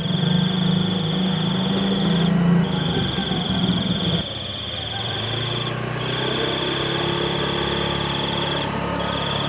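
An insect trilling on one high pitch in long runs of about two seconds with brief breaks, over a low steady hum that drops and changes about four seconds in.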